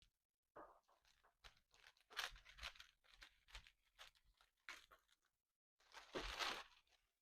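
Cellophane wrap crinkling and rustling in short irregular bursts as it is handled, loudest about six seconds in.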